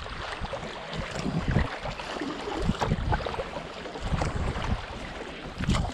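Canoe paddle strokes dipping and pulling through fast-moving river water, with splashing along the hull and wind rumbling on the microphone.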